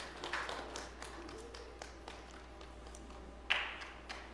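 Scattered hand clapping from a few people, thinning out after about two seconds, with one louder sharp hit near the end.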